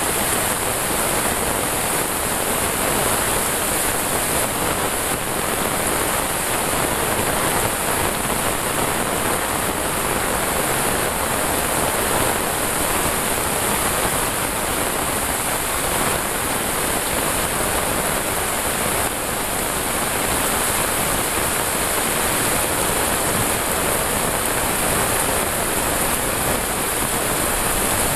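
Heavy tropical rain pouring down steadily, an even hiss with no let-up.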